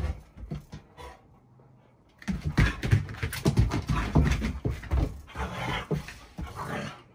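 Two Akita dogs play-wrestling on a wooden floor: paws scrabbling and thumping, with dog panting. The scuffling drops off about a second in and picks up again a little after two seconds.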